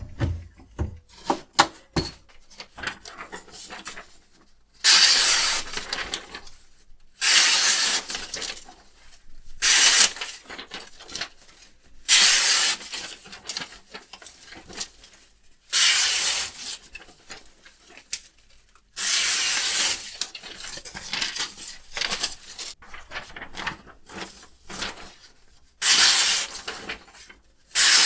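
A knife blade working with strokes that scrape or hiss, each one to three seconds long and about eight in all, with light clicks and knocks between them.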